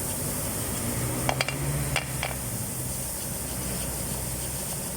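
Steady spraying hiss while brake parts are cleaned, with a few light metallic clicks between about one and two seconds in.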